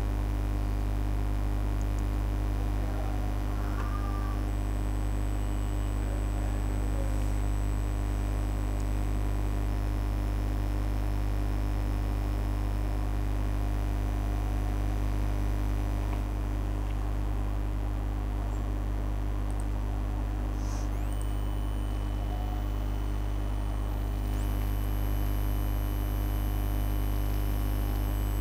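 Steady electrical mains hum: a constant low hum with a stack of higher buzzing overtones, unchanging in level.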